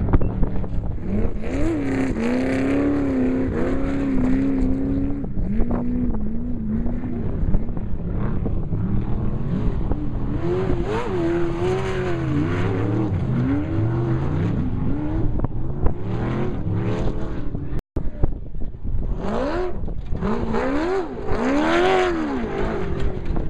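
Off-road desert race vehicles running past one after another, engines revving up and falling back as they accelerate and shift, several at once at times. The sound cuts out for an instant about three-quarters of the way through.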